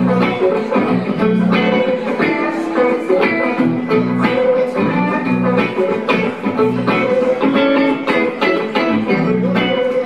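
Electric guitar played live: an instrumental passage of a song with a steady run of plucked and strummed notes, and no singing.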